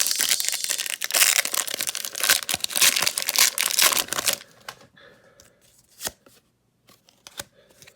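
Foil wrapper of a Pokémon trading card booster pack being torn open, a loud crinkly tearing for about four seconds, then quieter rustling of the wrapper and cards with a few clicks.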